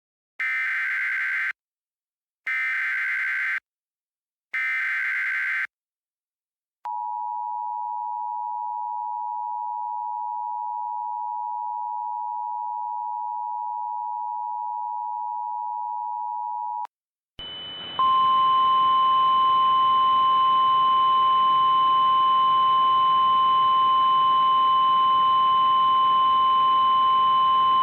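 Emergency Alert System tones: three short screeching SAME header data bursts, about a second each, then the two-tone EAS attention signal held for about ten seconds. After it come static hiss with a faint high whine and a single steady alert tone, typical of the NOAA Weather Radio 1050 Hz warning alarm.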